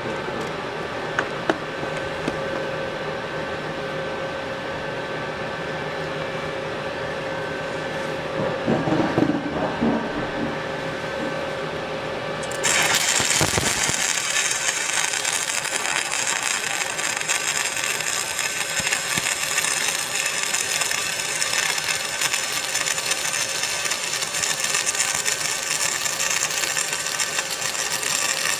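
Stick welding: a welding machine hums steadily with a couple of clicks, then about thirteen seconds in the arc is struck and the electrode crackles and sizzles steadily, at about 90 amps.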